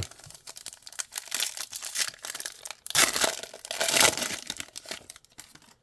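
Plastic wrapping of a trading-card blaster box and its packs being torn open and crinkled by hand. The ripping is loudest about three to four seconds in.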